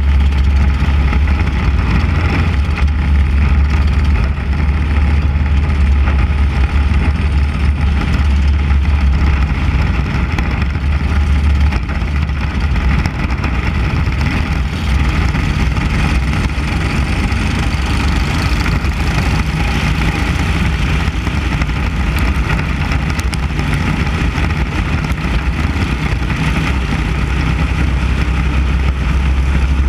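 Onboard sound of a 600 Mini Cup race car at racing speed: its 600cc motorcycle engine running steadily under a strong low rumble. The low rumble eases a little about twelve seconds in.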